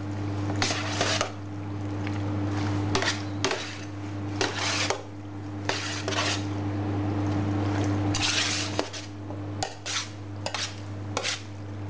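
Cold penne in pesto with cherry tomatoes being tossed by hand in a stainless-steel hotel pan: a series of short, irregular wet rustles and scrapes against the metal tray, over a steady low hum.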